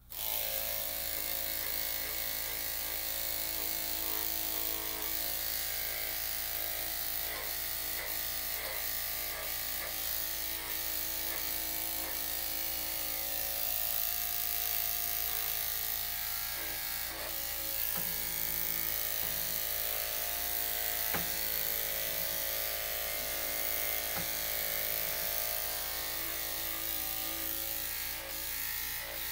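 Electric dog grooming clippers fitted with a number 7 blade switch on at the very start and run with a steady hum while clipping a dog's coat.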